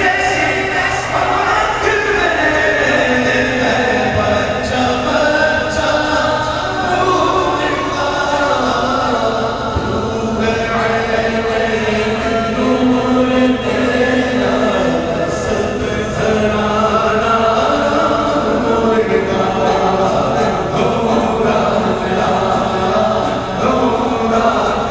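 A man singing a naat, a devotional poem in praise of the Prophet, unaccompanied and amplified through a microphone, with many voices in the crowd chanting along.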